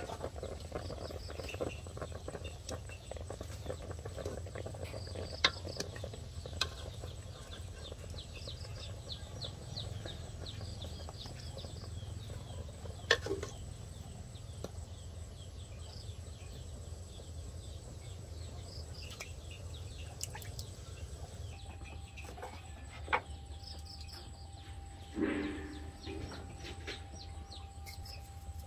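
Aluminium cooking pot, lid and metal tongs knocking sharply a few times, with a scrape near the end, while chickens and small birds call in the background.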